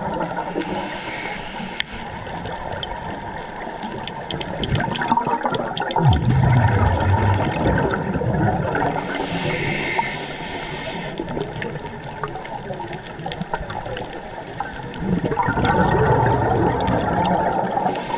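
Scuba diver's regulator breathing underwater, over a steady watery noise. Exhaled bubbles gurgle out about six seconds in and again near the end, with a hissing inhale between them.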